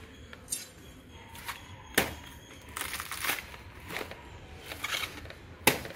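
Fibrous sheaths of a felled banana plant's trunk being peeled and cut away from the inner stem: a few sharp snaps, the loudest about two seconds in, with crackling, tearing rustles between them.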